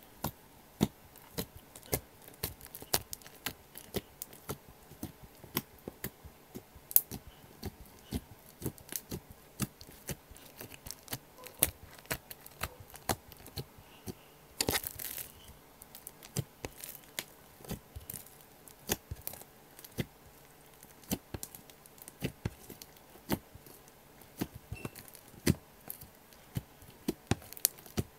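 Slime being poked and pressed with two fingers, giving sharp sticky pops and clicks at an irregular rate of a few a second, with one longer crackling squelch about halfway through.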